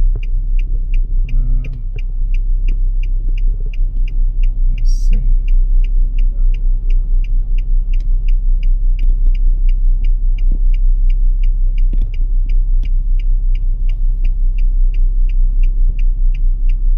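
Car turn-signal indicator clicking steadily inside the cabin, about three clicks a second, over the low rumble of the engine and road.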